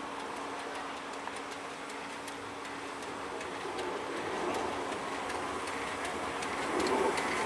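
Tubize 2069 steam tank locomotive moving slowly along the tracks, with light regular ticking over a steady hum. It grows louder over the last few seconds as it draws close.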